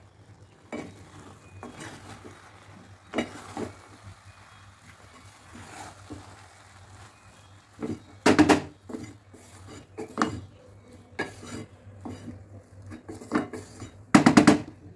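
Wooden spatula stirring and scraping cooked rice in a nonstick pot, knocking against the pot now and then. The loudest knocks come about eight and a half seconds in and near the end.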